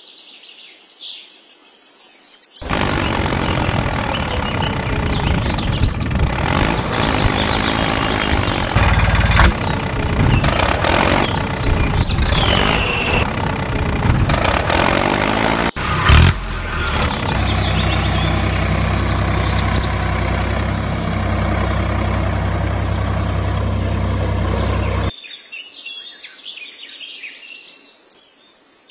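A small engine running, in stretches that cut abruptly from one to another, with a steady engine hum through the latter middle part. Birds chirp in the quieter stretches at the start and near the end.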